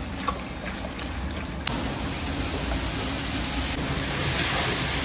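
Diced potatoes and vegetables frying in oil in a large kazan as they are stirred with a metal skimmer. A steady sizzling hiss starts abruptly about a second and a half in and grows louder near the end. Before it come a few light clinks.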